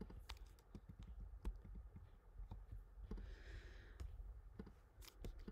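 Faint, irregular clicks from a computer mouse and keyboard, about a dozen spread over a few seconds.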